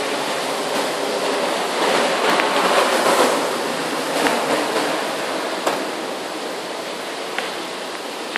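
Heavy rain pouring steadily during a thunderstorm, swelling louder for a second or so about two seconds in, with a few sharp ticks of drops hitting something close by.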